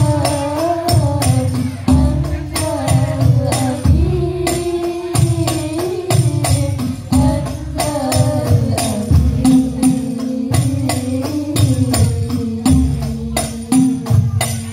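Banjari ensemble performing sholawat: female voices singing over hand-beaten frame drums (rebana), which give deep bass strokes and sharp slaps in a steady rhythm. The singing settles into one long held note through the second half.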